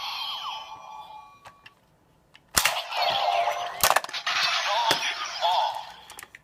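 Kamen Rider Gaim toy transformation belt with a Genesis Core and lock seeds playing its electronic sound effects through its small speaker: a synthetic standby jingle fades out, then about two and a half seconds in a sharp plastic click sets off a loud burst of electronic transformation effects, with a voice and more sharp cracks, fading near the end.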